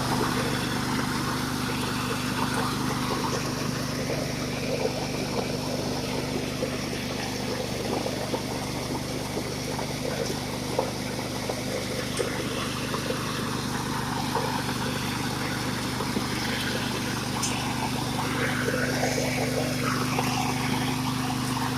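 Engine-driven coffee huller running steadily while hulling dried coffee beans: a constant engine hum under a dense rushing rattle of beans and husks passing through the machine.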